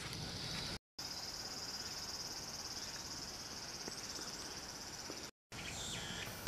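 Steady high-pitched insect chorus, a continuous shrill trill, cut off briefly twice where the recording breaks.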